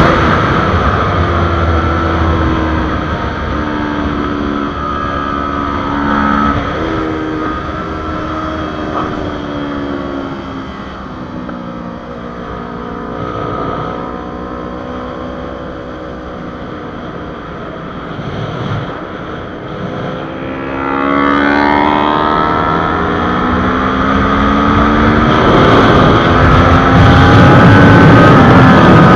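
Kawasaki Ninja 400 parallel-twin engine heard from onboard at track speed, with heavy wind rush. The engine note drops and stays low and quieter through the middle while the bike leans through a long corner, then climbs again in rising sweeps broken by gear changes from about two-thirds through, back to full throttle near the end.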